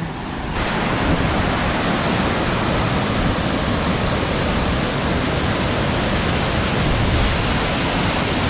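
Steady rush of a large waterfall, Velo de Novia, the main cascade at El Chiflón, pouring down with heavy force. The full, brighter rush comes in about half a second in.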